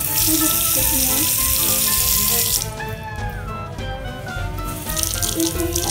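Water running from a bathroom tap into a basin sink to fill a cup, a loud steady rush for about two and a half seconds, then a shorter, choppier rush near the end. Background music plays underneath.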